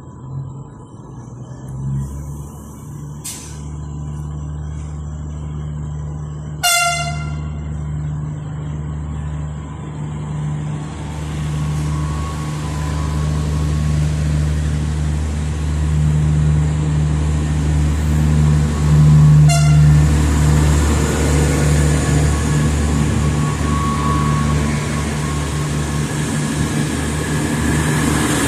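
Passenger train pulling out of a station: a steady low engine drone with two short horn toots, one about a quarter of the way in and one about two-thirds in, while the rolling rumble of the wheels and carriages grows louder.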